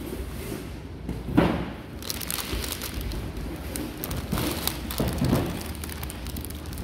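Clear cellophane flower wrappers crinkling in short, uneven spells. A dull knock about a second and a half in is the loudest sound, and a low rumble runs underneath.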